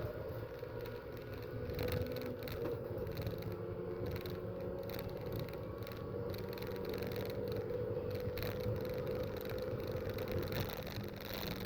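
Racing car engines running steadily on a circuit, a continuous engine drone with no break.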